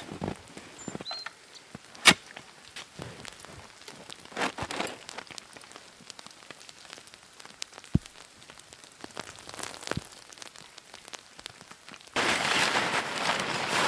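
Wood fire crackling, with scattered small pops and one sharp crack about two seconds in. Near the end, a louder steady rushing noise cuts in abruptly.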